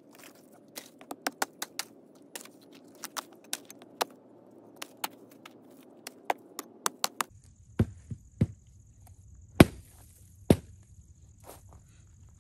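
Dry dead wood being broken off a fallen log by hand: a string of sharp cracks and snaps, about one or two a second. In the second half come a few heavier knocks as chunks are struck and torn loose.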